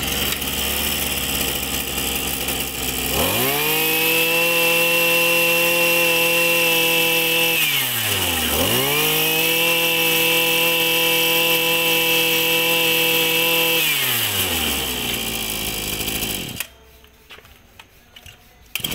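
Maruyama 26cc two-stroke backpack brush cutter engine running at idle, then revved up and held at high speed twice, dropping briefly in between, before falling back to idle and being shut off about 16 seconds in.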